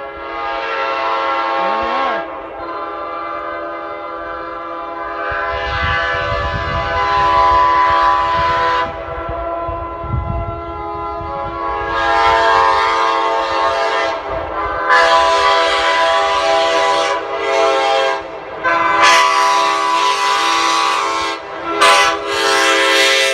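Nathan Airchime K5L and K5LA five-chime train horns blown together on compressed air, sounding one sustained chord. Repeated louder blasts of a few seconds each come closer together near the end.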